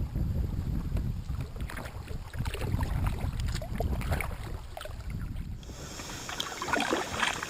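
Kayak paddling on a river: water splashing and dripping off the paddle, with wind rumbling on the microphone. A little over two-thirds of the way through the wind rumble drops away and the water splashing comes through brighter.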